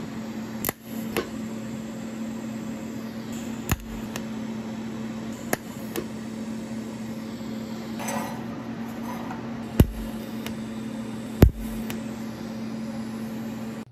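TIG welding arc on steel rod, a steady electric buzz and hiss, with several sharp clicks.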